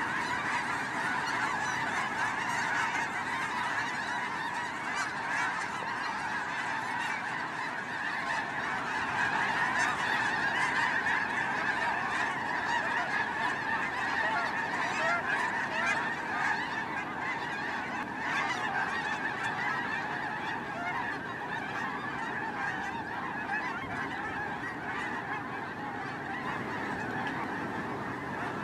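A huge flock of snow geese calling together: a dense, steady chorus of countless overlapping honks.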